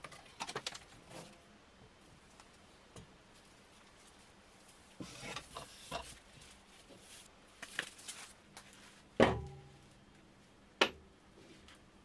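Handling of a freshly sawn spalted ash log round on a workbench: scattered wooden knocks and clatters, a heavy thump about nine seconds in as the round is set down, then one sharp knock.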